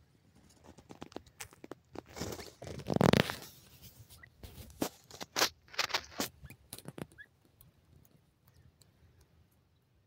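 Teetar (grey francolins) dust-bathing in loose dry soil, scratching and fluttering so the dirt rustles and crunches in a run of scratchy bursts. The bursts are loudest about three seconds in and die away after about seven seconds.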